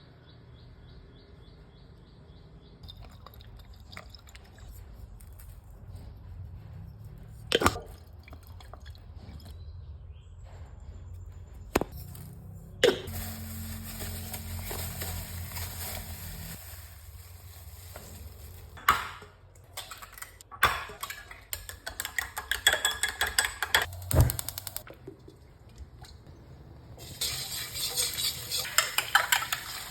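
Kitchen cooking sounds for pork fried rice: utensils and dishes clinking, with several sharp knocks. Near the end, food starts sizzling and frying in a hot pan.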